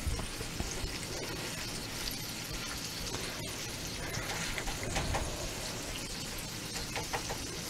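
Ham steak sizzling in melted butter in a stainless steel skillet, a steady frying crackle, with a few light taps of a metal spatula against the pan about five and seven seconds in.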